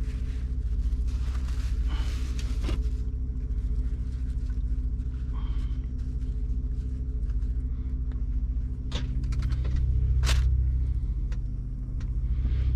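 Steady low rumble of an idling diesel truck engine heard inside the cab, with plastic-bag rustling early on and a few sharp clicks and knocks as food containers and the fridge drawer are handled.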